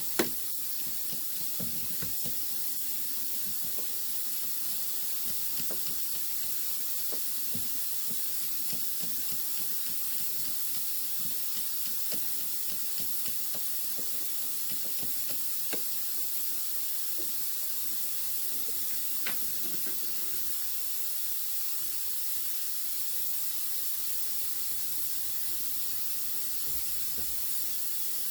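Steady hiss of steam, with faint scattered ticks and a sharp click right at the start: steam being fed into the guitar's neck joint to loosen the glue so the neck can be removed for a neck reset.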